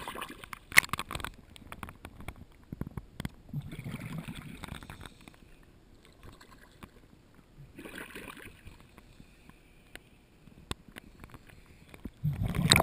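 Lake water splashing and sloshing right against a GoPro's waterproof housing held at the surface, in several uneven bursts with sharp knocks among them. The sharpest knock comes about a second in, and the loudest splashing comes near the end.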